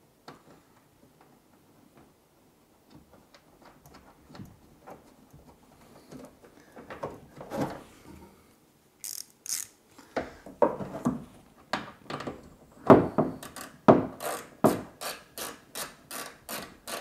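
Ratcheting clicks as a hand tool turns the velomobile's rear suspension bolt back in: a few scattered soft knocks and handling noises at first, then from about ten seconds in a quick, steady run of sharp clicks, a few per second.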